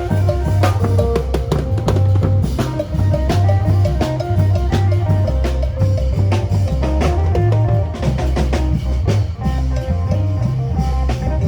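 Isan phin band playing upbeat lam phloen dance music: plucked phin melody over a drum kit and a heavy, pulsing bass with a steady beat.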